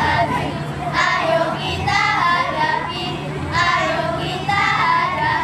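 A group of primary-school girls singing a yel-yel, a Scout cheer song, together in short phrases with brief breaks between them.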